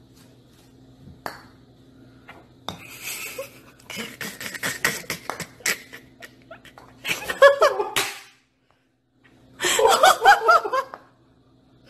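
A person laughing in two bursts, about seven seconds in and again near ten seconds. Before them come light clicks and taps.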